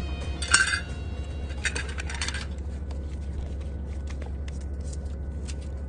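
Metal fork scraping and clicking against a frying pan, with two short scrapes and then scattered small clicks, over a steady low hum.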